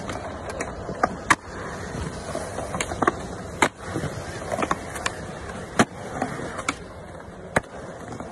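Skateboard wheels rolling over a concrete skatepark surface, a steady rumbling hiss broken by a series of sharp clicks at irregular intervals.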